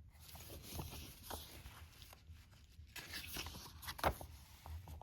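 Paper rustling and crackling as press-kit pages are handled and turned, with a few sharper crackles near the end.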